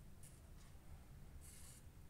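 Near silence with faint small ticks and a short scrape about one and a half seconds in, from small screws and a precision screwdriver being handled while an OTF knife is taken apart.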